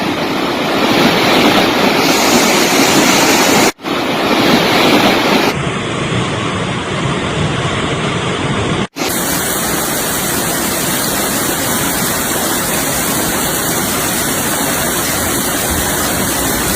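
Fast floodwater rushing in a swollen stream, a steady loud wash of water noise. It breaks off sharply about 4 and 9 seconds in, and a slightly different stretch of the same rushing water follows each time.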